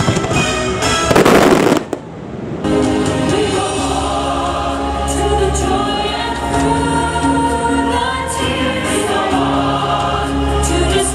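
Fireworks bursting over the outdoor show soundtrack, with one loud crackling blast about a second in. After a short dip, orchestral show music with a choir carries on with long held notes.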